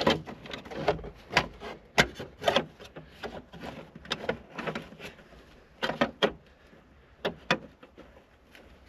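Irregular clicks, knocks and rattles of hands and tools working on a car's accelerator pedal assembly, with the sharpest knocks about two seconds in and around six seconds in.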